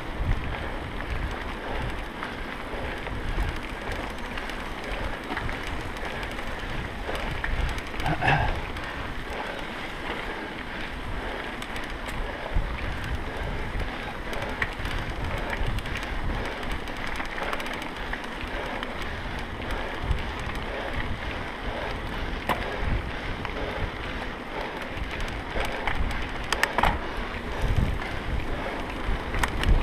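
Mountain bike ridden over a dirt track: tyres rumbling on the ground and the bike rattling, with wind buffeting the microphone. Two brief, higher sounds stand out, about eight seconds in and near the end.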